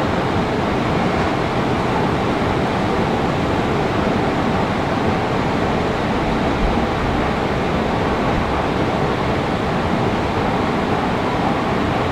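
Steady, even rushing noise of an underground metro station, with nothing standing out and no change.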